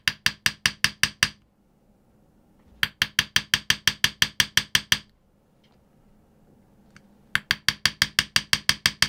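A small hammer tapping a hand-held engraving chisel into a steel kitchen knife blade, in quick light strikes about six a second with a short metallic ring. The taps come in three runs with brief pauses between them.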